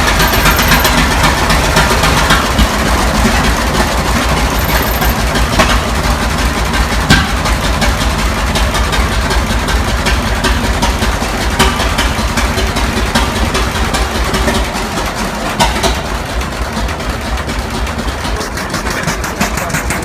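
Large engine running steadily with a rapid, even firing beat and a few sharper clicks here and there.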